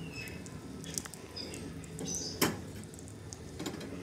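Gas stove burner flame running with a low steady rush under a rusty pipe wrench being heated, with a few light clicks and one sharp metal knock about two and a half seconds in as the wrench is handled on the iron burner grate.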